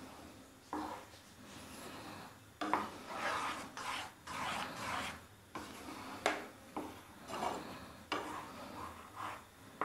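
Wooden spatula scraping and stirring through thick curry gravy in a frying pan, in repeated rasping strokes about one or two a second. The gravy is being stirred as it heats to the boil.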